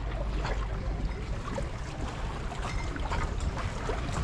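Seawater lapping and trickling against shoreline rocks, with a steady low rumble of wind on the microphone and scattered small splashes.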